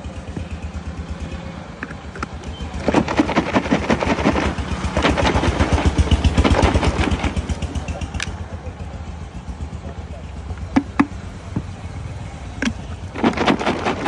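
Raw green guava pieces and mustard sauce being shaken hard in a capped plastic jar, a fast rattling and sloshing in two bouts: a long one in the first half and a shorter one near the end, with a few single knocks between. A steady low engine putter runs underneath.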